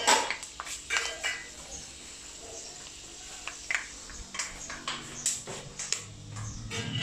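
Fenugreek seeds crackling and popping in hot oil, heard as scattered sharp clicks and spits, with light knocks of a spoon on the pan. About six seconds in, as a wall switch is pressed, a low steady hum starts.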